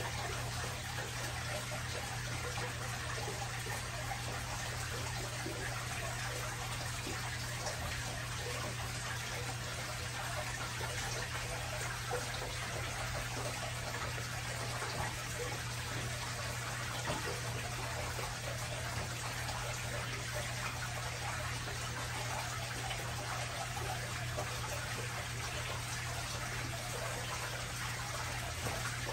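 Aquarium filter running: steady trickling water with a low hum underneath.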